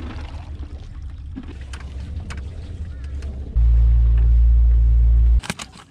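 Low rumble of wind or handling on the microphone aboard a pontoon boat, swelling into a much louder low buffet for about two seconds that stops abruptly, then a few sharp knocks near the end.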